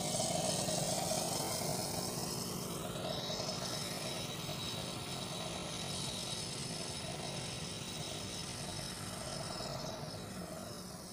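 A steady engine drone with a hiss over it, slowly fading away near the end.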